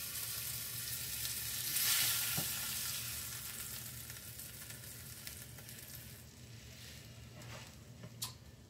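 Pork sausage patties sizzling in fat in a nonstick frying pan while they are lifted out with a spatula, the heat just turned down to medium-low. The sizzle swells about two seconds in, then fades away, with a light tap near the end.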